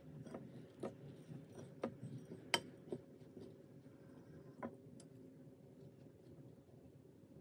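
Faint room noise with a steady low hum, broken by about half a dozen light, sharp clicks and taps of small objects being handled, the loudest about two and a half seconds in.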